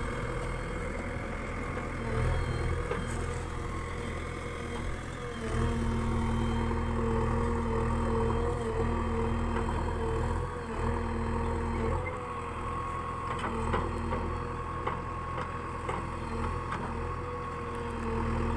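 JCB 3DX backhoe loader's diesel engine running steadily while the backhoe arm digs. The engine gets louder under hydraulic load from about five seconds in until about twelve seconds in, then eases back.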